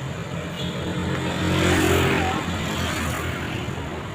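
A road vehicle passing close by: a low engine rumble with tyre and road noise that swells to its loudest about two seconds in, then fades.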